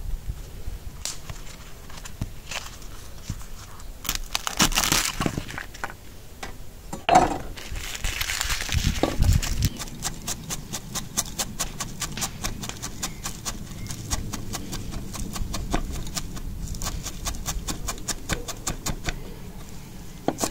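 Chef's knife chopping fresh parsley on an end-grain wooden cutting board, blade knocking on the wood in a fast, even rhythm of about five strokes a second through the second half, after scattered knocks and rustling in the first half.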